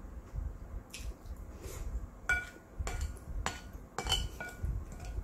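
Wooden spoon scraping and clinking against a large ceramic plate of noodles, a series of sharp clinks in the second half, several with a short ringing tone.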